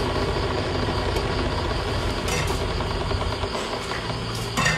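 Tap water running into a stainless-steel sink as raw shrimp are rinsed by hand, a steady rushing noise. A short clatter near the end.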